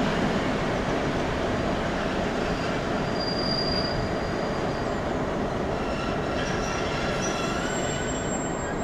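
Freight wagon wheels squealing thinly on the rails as a short train rolls slowly, high tones coming and going from about halfway, over a steady rail and diesel rumble.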